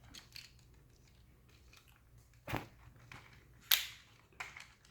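Plastic parts of a Tobot Adventure Y transforming robot toy being handled and clicked into place: faint handling sounds with two sharp snaps, one about two and a half seconds in and a brighter one near the end.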